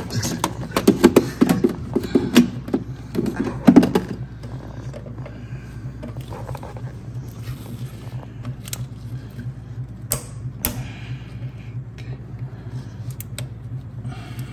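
Clicks and scrapes of a spring-type hose clamp being worked along a rubber coolant hose at the thermostat housing, busy for the first few seconds, then a few single clicks, over a steady low hum.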